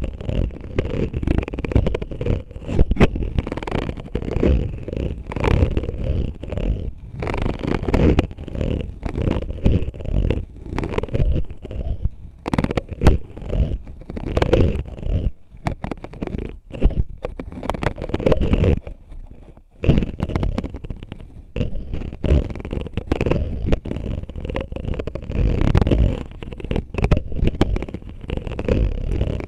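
Close-miked scratching and tapping on an oil bottle: dense, irregular scraping and rubbing with many small clicks and taps, heavy in the low end, thinning out briefly a few times.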